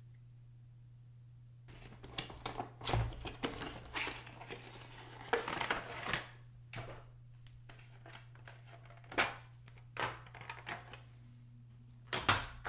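Clear plastic blister packaging and cardboard box being handled: starting about two seconds in, a run of crinkles, clicks and rustles as a plastic model carrier-deck section is slid out of its box and pulled from its tray, then a few separate clicks, over a faint steady hum.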